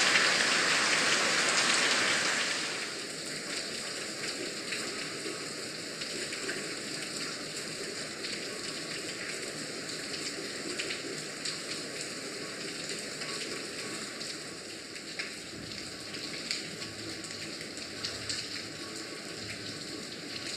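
Rain falling, loud and dense for the first two seconds or so, then easing to a steadier, quieter rain in which single drops can be heard as small ticks.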